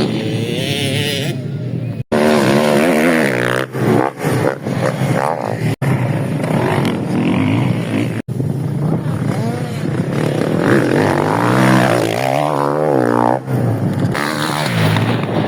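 Motocross motorcycle engines revving up and down as the bikes ride practice, the pitch rising and falling again and again, with more than one bike heard at times. The sound cuts out for an instant three times.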